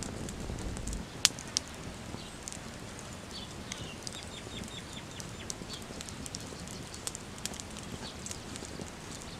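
Open cooking fire crackling, with scattered sharp pops and one loud snap about a second in. A bird calls a quick run of short, high chirps a few seconds in.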